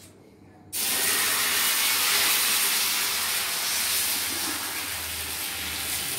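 Dosa batter sizzling on a hot tawa as it is ladled on and spread. A loud, even hiss that starts suddenly about a second in and holds steady.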